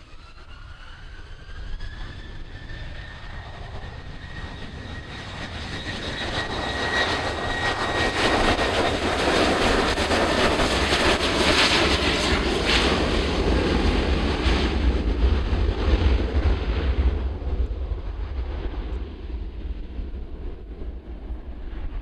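Bombardier Global 7500 business jet's two GE Passport turbofans spooling up to takeoff thrust with a rising whine, then the jet accelerating down the runway and lifting off. The noise builds to its loudest about halfway through as the jet passes, then eases off as it climbs away.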